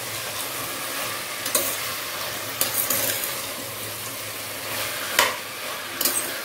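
Diced vegetables sizzling in hot oil in a pressure cooker while a slotted spoon stirs them. The spoon scrapes and clicks against the pot several times, loudest a little past the middle, over a steady hiss of frying.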